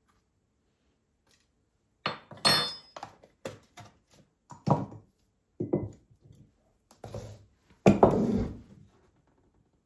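Household objects being handled: a string of separate knocks and clunks as things are set down, one short ringing clink about two and a half seconds in, and a longer scraping rustle near the end, the loudest part.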